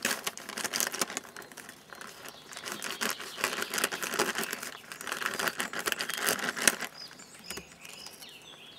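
Thick plastic ration-pack bag crackling and rustling as it is slit with a knife and pulled open by hand, in uneven spells of sharp crinkles that die down about seven seconds in.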